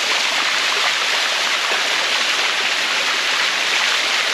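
Shallow waterfall cascading over mineral-crusted rock steps close by: a loud, steady rush of water.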